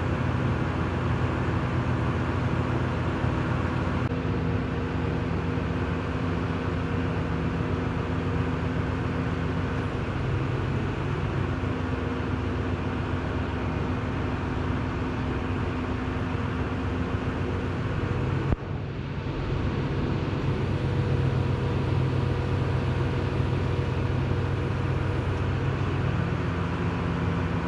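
Truck engine running steadily, powering the crane that lowers the transmission shafts into the case; its pitch steps up and down a few times. A single sharp knock about two-thirds of the way through.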